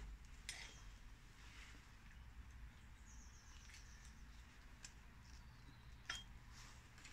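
Near silence: faint rustling of a paper towel and a few light clicks from handling a greased inner CV joint, the sharpest click about six seconds in.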